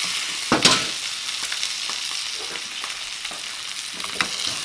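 Eggs frying in a hot pan of leftover curry meat and its released oil, a steady sizzle. A short clatter about half a second in, and a few lighter taps near the end.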